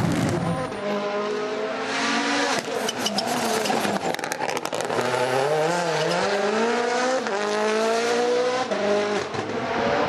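Rally car engines revving hard, pitch climbing and dropping again and again as they shift through the gears, with a run of sharp cracks a few seconds in.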